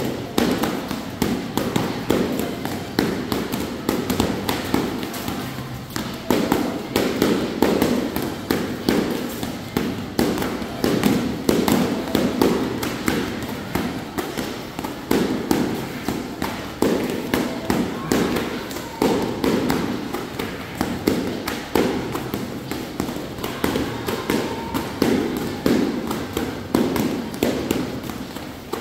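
Heavy battle ropes slapping the gym floor in rapid, continuous waves of sharp slaps.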